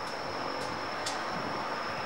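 Distant city ambience: a steady rumble of far-off traffic and trains, with a steady high-pitched tone over it and two faint sharp ticks about half a second and a second in.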